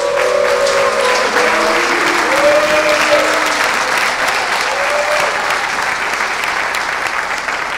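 Large audience applauding steadily, with a few voices calling out over the clapping in the first few seconds, then easing slightly near the end.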